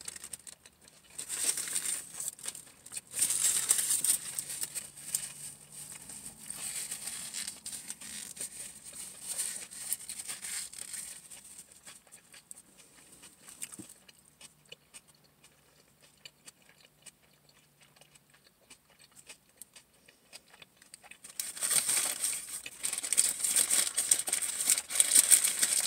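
Subway sandwich paper wrapper crinkling and rustling as it is handled, in irregular bursts. It goes quiet in the middle and turns loud again near the end.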